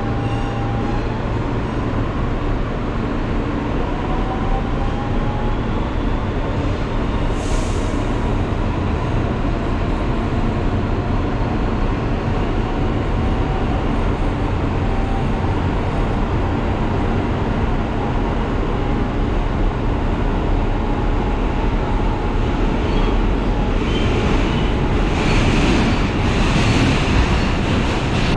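New York City subway train running, a steady rumble with a faint motor whine that drifts slightly in pitch. A brief high-pitched burst comes about seven seconds in, and louder high-pitched screeching near the end.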